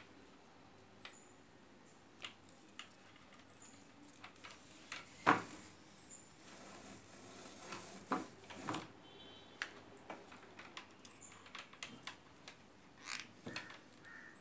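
Handling noise of insulating tape being threaded through and wound around a toroidal transformer's copper winding by hand: irregular rustles, taps and small clicks, with one sharper knock about five seconds in.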